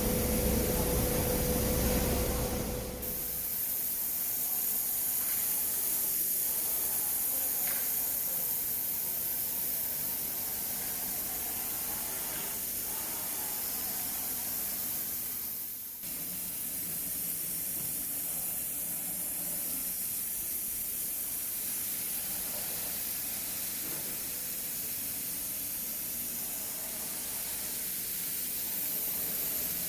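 5-axis CNC router's spindle running at high speed while machining, a steady high hiss with a lower hum and rumble in the first few seconds. The sound changes abruptly about three seconds in and again about halfway through.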